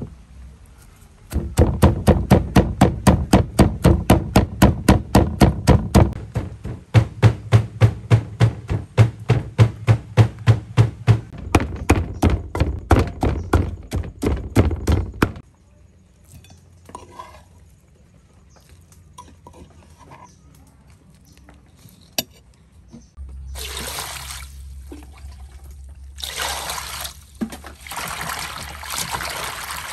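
Wooden pestle pounding lemongrass, galangal, kaffir lime leaves and garlic into a paste in a wooden mortar, a steady run of strikes about three a second that stops about halfway through. Later, running water splashing over leafy greens as they are washed by hand.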